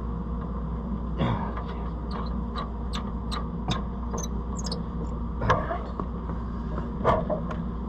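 Sharp metallic clicks and clanks of tools and parts being worked on a combine's gathering chain assembly, a quick run of them a couple of seconds in and louder knocks later, over a steady low hum.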